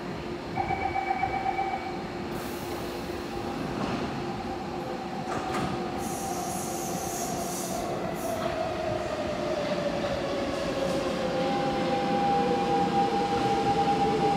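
Kawasaki C151A electric metro train braking into the station, its traction motor whine falling steadily in pitch over the rumble of the wheels on the rails and growing louder as it nears. A brief pulsing tone sounds about half a second in.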